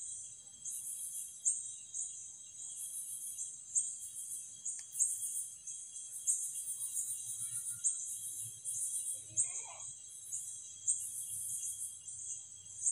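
Night-time insect chorus: a high-pitched pulsing chirp repeating steadily, about three pulses every two seconds, over a steady high trill.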